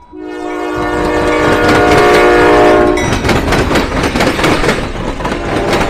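Train air horn sounding one long blast of several notes at once, then the train's wheels clattering over the railroad diamond crossing in a rapid run of sharp knocks, starting about three seconds in.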